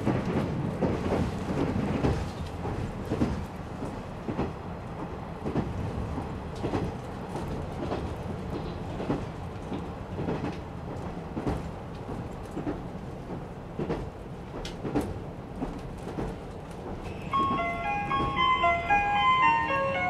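Cabin of a JR Shikoku KiHa 185 series diesel railcar under way: steady engine and running noise with repeated clicks of the wheels over rail joints. About seventeen seconds in, the JR Shikoku on-board chime starts, a short tune of bright notes that signals a coming announcement.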